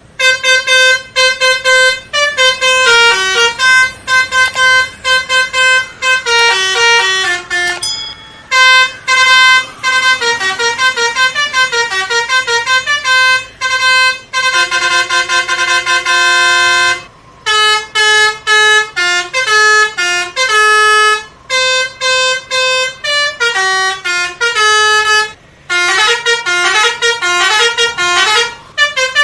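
Multi-tone 'telolet' bus horn playing quick melodic runs of short toots that step up and down in pitch, with a longer held chord about halfway through and a few brief pauses between phrases.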